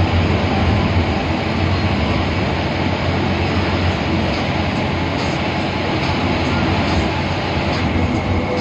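Moving intercity air-conditioned bus heard from inside the cabin: a steady low engine drone under continuous road and tyre noise, with a few faint rattles in the second half.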